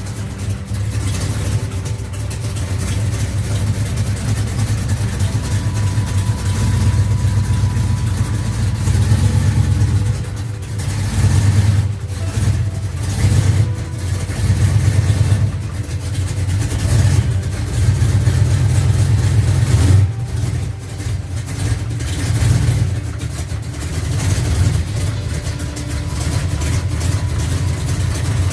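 Engine of a 1969 Dodge Charger running, its sound swelling and easing every second or two as the throttle rises and falls, with a brief dip about twenty seconds in.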